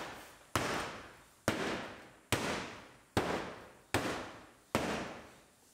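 Six sharp blows, a little under a second apart, each dying away over about half a second: the bent bottom of a 2006 GMC Sierra's steel front door being knocked back into line with a door adjustment tool.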